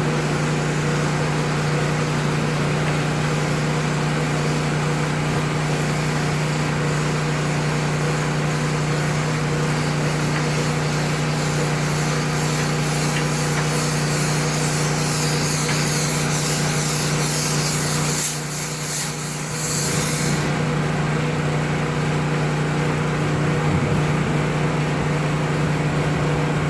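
Dryer vent cleaning rig running steadily with a motor hum, as its spinning air hose blows air and lint back out of the vent duct. A rushing hiss of air builds from about twelve seconds in, briefly drops out, then cuts off around twenty seconds.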